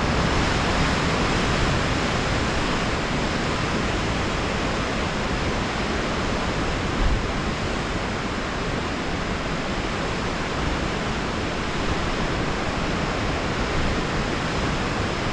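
Ocean surf breaking on rocks below a cliff, a steady rush of waves.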